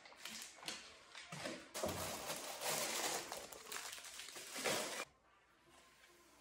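Plastic food packaging rustling and crinkling as groceries are handled and shifted on a cupboard shelf. The rustling stops abruptly about five seconds in.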